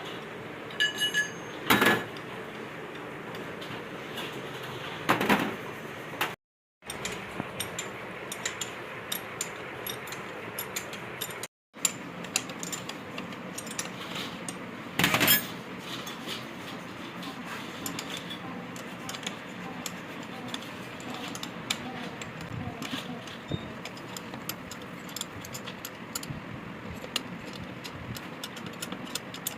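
Metal hand tools clinking and tapping on metal parts, with a few louder knocks, over a steady background hum.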